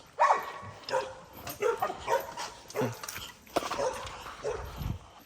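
Pit bull-type dogs barking and yipping, about nine short barks with some whining in between, while they wait to be fed.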